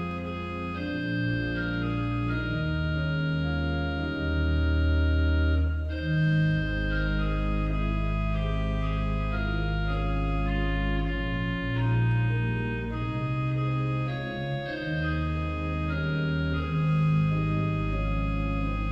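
Church organ playing a slow piece of held chords over deep bass notes, the chords changing every second or two.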